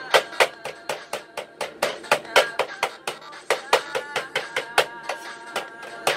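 Cleaver chopping raw chicken on a wooden cutting board: a quick run of sharp knocks, about four a second, over background guitar music.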